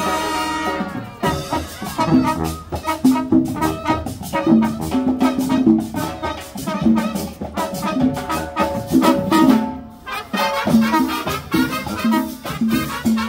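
Marching band playing a salsa-style tune, with brass and saxophones over a steady drum beat.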